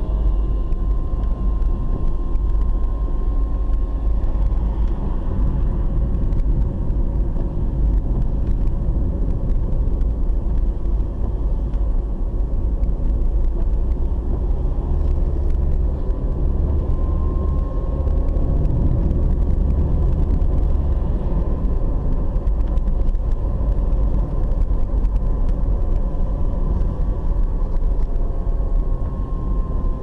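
Car running along a paved road, heard from inside the cabin: a steady low rumble of engine and tyre noise with a faint steady whine.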